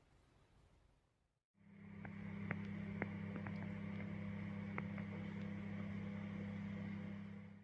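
A small electric kitchen motor runs with a steady low hum, with a few light clicks in its first few seconds. It starts about a second and a half in and stops suddenly at the end.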